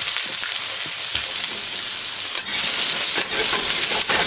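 Slivered ginger sizzling in hot peanut oil in a wok. About halfway through the sizzle grows louder as a metal wok spatula starts stirring and scraping the ginger around the pan.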